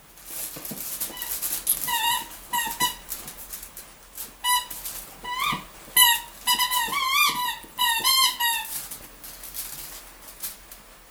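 A dog biting and chewing a rubber squeaky toy, making a quick run of short, high squeaks in clusters over several seconds, with clicks and rustling from the mouthing.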